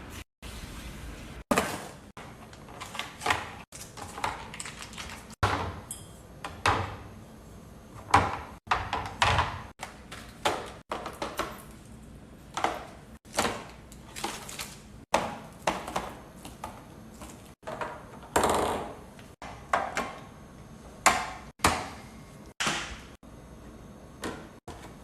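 Food containers and items being handled and set into a fridge: a run of quick, separate knocks, taps and clatters, about one or two a second.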